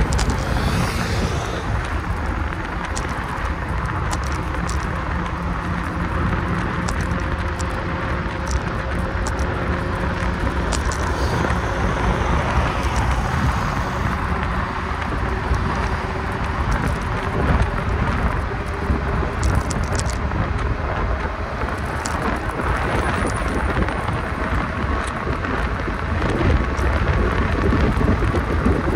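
Steady wind rush and low rumble of travel buffeting the microphone.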